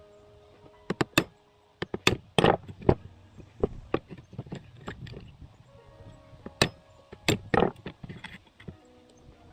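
Irregular sharp knocks and clanks of metal parts and hand tools being handled and set down on a workbench, with faint steady tones of background music underneath.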